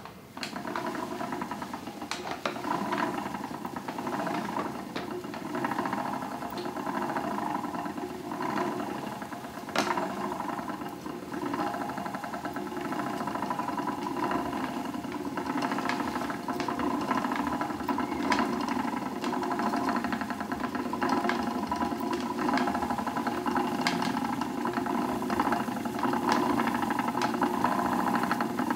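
Wooden treadle spinning wheel spinning wool: the big wheel and flyer turning with a steady whir, with occasional light knocks. It starts just after the beginning and runs on evenly.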